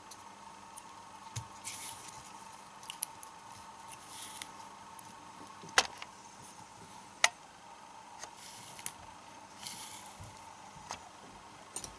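Faint handling noise from a lithium-ion drill battery pack as its nickel strip tabs are threaded through slots in the protection circuit board: scattered light clicks and brief rustles, with two sharper clicks about six and seven seconds in.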